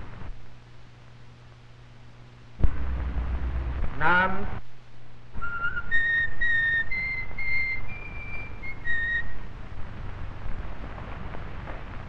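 A person whistling a short tune of about eight clear notes that climb step by step and drop back at the end, over a steady low hum. A little earlier, noise comes in suddenly, followed by a quick rising glide.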